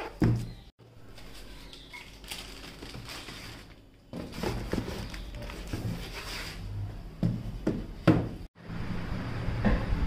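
Cardboard boxes being handled and lifted out of a larger carton: rustling and scraping with several sharp knocks, over a low steady hum.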